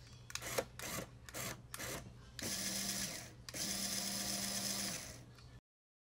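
Small electric motor of the Lego remote-control boat running in several short bursts, then in two longer runs of about one second each with a steady hum, before the sound cuts off suddenly near the end.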